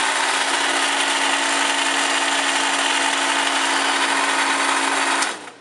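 Sta-Rite one-horsepower pool pump motor running with a loud, steady buzzing sound, which the owner attributes to bad bearings. It shuts off near the end.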